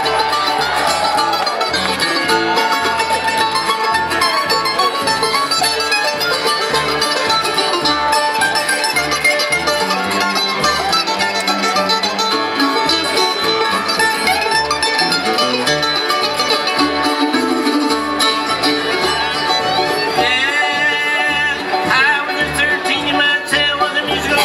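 Bluegrass band playing an instrumental break on mandolin, banjo, acoustic guitar, fiddle and upright bass.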